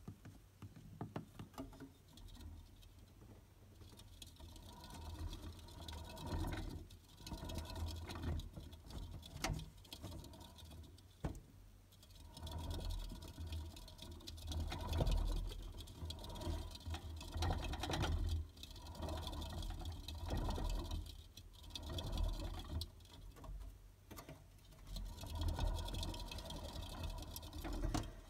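A hamster running in a plastic exercise wheel: the wheel spins with a low rumble and a fast patter of small ticks, which swells and eases in surges every few seconds as the running speeds up and slows.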